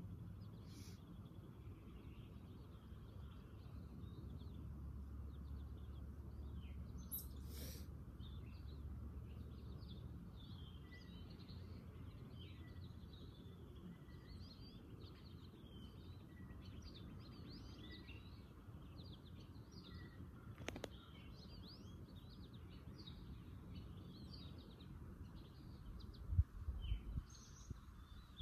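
Outdoor ambience of wild birds chirping and calling, many short calls throughout, over a steady low outdoor rumble. A few low thuds come near the end.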